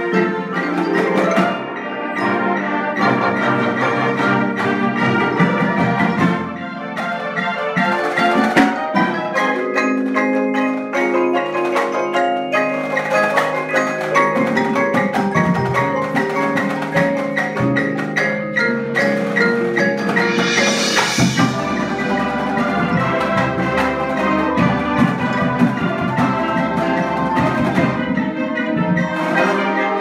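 Marching band playing its show opener: sustained brass and woodwind chords over quick runs on marimbas, vibraphone and xylophone in the front ensemble. A high shimmering swell builds and peaks about two-thirds of the way through.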